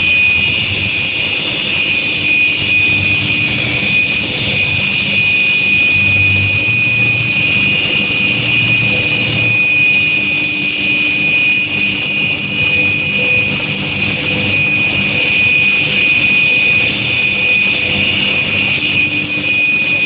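Induction heat-treatment furnace running: a steady high-pitched whine over a low hum.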